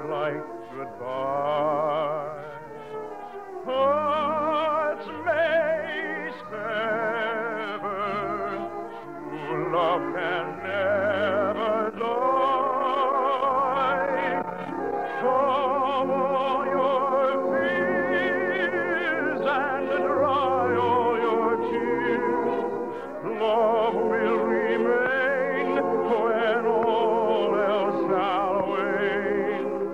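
Operatic singing with a wide vibrato over orchestral accompaniment, a sustained operetta number.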